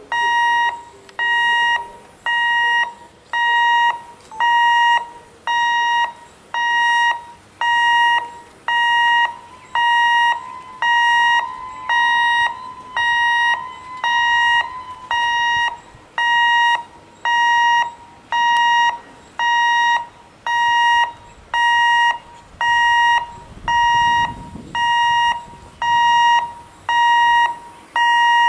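Electric level-crossing warning alarm beeping at a steady pitch, about once a second, as the railway gate stays closed for an approaching train.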